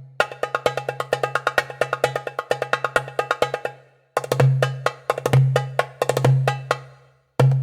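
Sampled Middle Eastern hand-drum patterns from a software instrument library. A fast run of crisp, evenly spaced strokes fades out after about three and a half seconds. After a short gap a slower pattern follows, with deep booming strokes under sharper hits, and a new phrase starts near the end.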